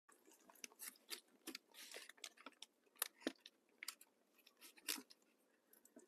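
Faint, close chewing and biting of a flaky Jamaican spicy cheese patty, with many short, sharp crackles from the pastry and its paper bag.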